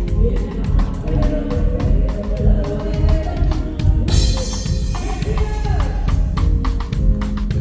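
Live band playing reggae, with heavy bass and a drum kit keeping a steady hi-hat beat. A cymbal crash comes about halfway through.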